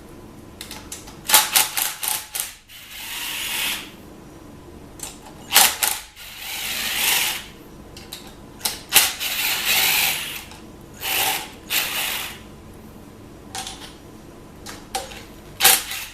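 Ratchet wrench working bolts loose: about five bursts, each a quick run of sharp clicks followed by about a second of fast whirring ratcheting, with short pauses between.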